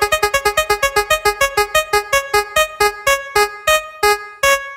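Spin-wheel sound effect: a fast run of short, pitched, electric-piano-like ticks that slows steadily, from about ten a second to about one a second, as the wheel winds down.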